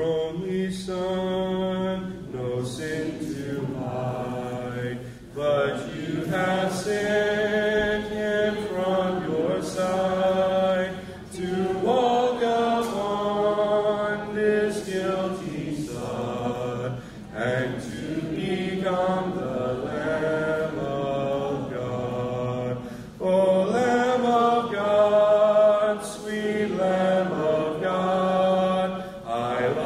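A man's voice singing a hymn a cappella, with no instruments, in slow phrases of held notes with a short break between each.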